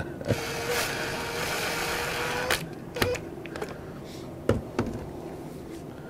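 A handheld cordless drill-driver running steadily for about two seconds against a vacuum's plastic base, then stopping abruptly. A few sharp clicks and knocks of plastic parts being handled follow.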